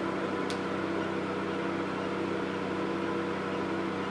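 Steady electrical hum of the triple-wavelength diode laser hair removal machine running with its cooling on. There is a brief high chirp about half a second in.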